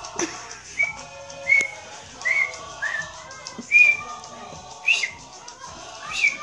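About seven short, high whistled chirps, spaced roughly a second apart, over faint music.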